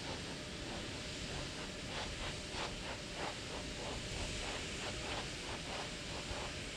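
A steady hiss of noise, with faint ticking at about four a second from about two seconds in.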